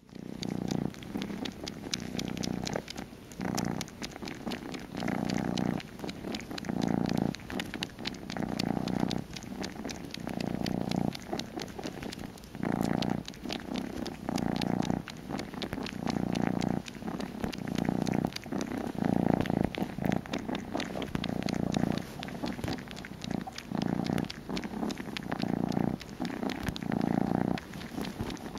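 Kitten purring loudly, the purr swelling and fading about once a second, with rapid small clicks as it suckles on a woolly shawl in place of a bottle.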